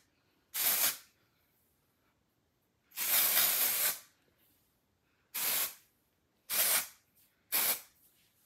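Aerosol can of charcoal dry shampoo spraying in five short hissing bursts, the second about a second long and the others briefer.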